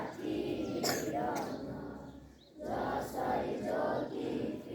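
A group of schoolchildren singing together in chorus, in phrases with a brief breath pause about halfway through, likely the school song at a morning assembly.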